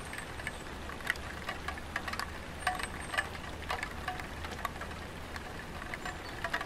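Light rain falling on a tiled roof: irregular drops tapping, several with a short pitched ring, over a faint steady rumble.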